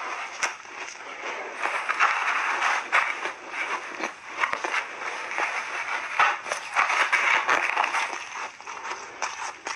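Soft refrozen shaved ice crunching and crackling as it is squeezed into clumps by gloved hands and bitten, a dense run of small crisp crackles that swells and eases in waves.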